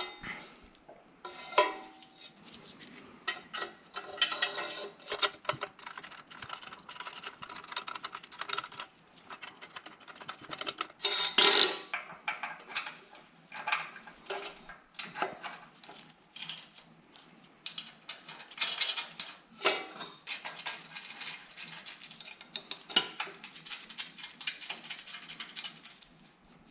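Irregular metallic clinks and clanks of hand tools, bolts and a steel exhaust bracket being fitted and tightened on an HMMWV exhaust, with a louder clank about 11 seconds in and another near 20 seconds.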